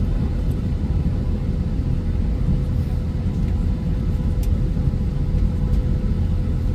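Airliner cabin noise: a steady low rumble of engines and airflow, with a thin steady tone above it.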